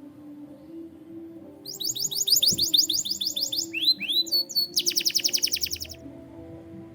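Canary singing: a run of quick, high rising notes about a second and a half in, then a few slower upward-sweeping notes, ending in a very fast, even trill that stops near the end.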